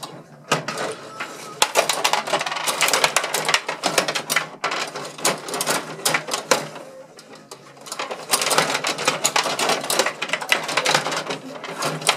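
Rod hockey table in play: the plastic player rods rattle and clack as they are pushed, pulled and spun, with the puck knocking against sticks and boards. The clatter eases off briefly about seven seconds in, then picks up again.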